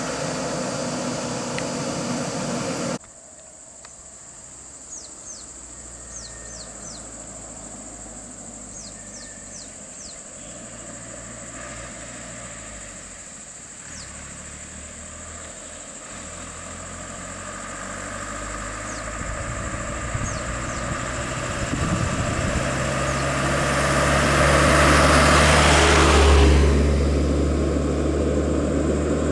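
Lanka Ashok Leyland truck running as it drives past. After about three seconds the sound drops suddenly to a quieter steady engine hum, with a few short, falling bird chirps over it. Later a vehicle's noise builds and passes close, loudest near the end.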